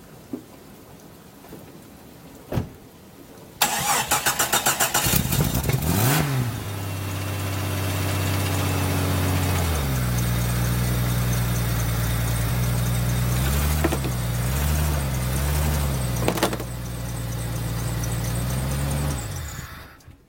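1999 Jeep Cherokee XJ engine cranked over by the starter for about a second and a half, catching and revving briefly, then idling steadily. A few small throttle blips come as it is driven up onto ramps, and it is shut off near the end.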